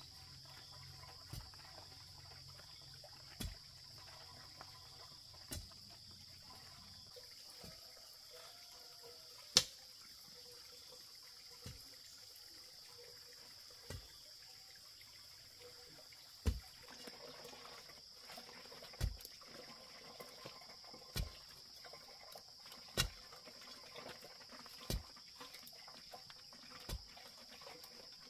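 Dull thuds repeating about every two seconds, over a steady high-pitched insect drone.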